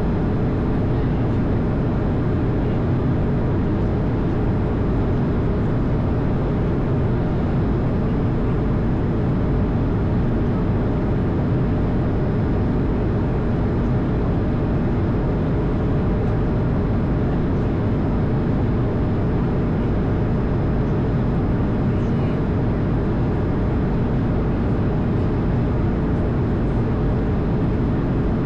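Steady cockpit noise of an Airbus A220 with its Pratt & Whitney geared turbofan engines running: an even rush of airflow and engine noise, mostly low, with a faint steady hum and no change in level.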